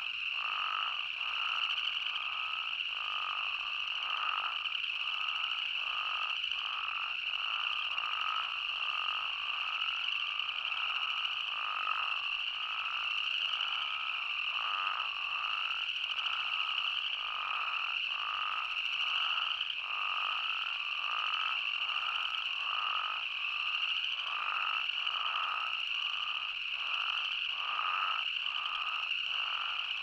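Spadefoot toads calling in a dense chorus: a steady high-pitched din with lower, short calls repeating more than once a second.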